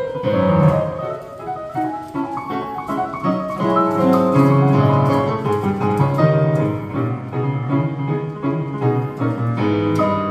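Digital piano played with both hands: a continuous piece of chords and melody, with bass notes under the tune.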